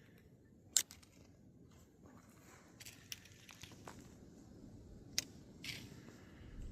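A hiker's footsteps on the trail: faint, irregular crunches and clicks, the sharpest about a second in and more around the middle and near the end.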